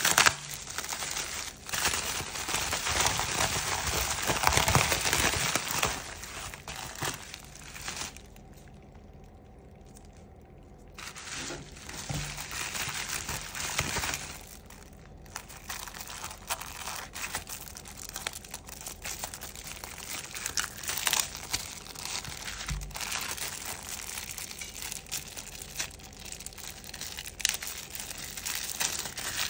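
Plastic packaging, bubble wrap and then thin plastic bags, crinkling and rustling as hands unwrap and handle it. The sound is dense at first, drops away for a few seconds about a third of the way in, then comes back as scattered crinkles and clicks.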